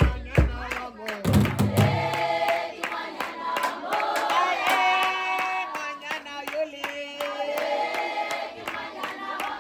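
A group singing a chant with hand clapping, with drums beaten with sticks in the first two seconds.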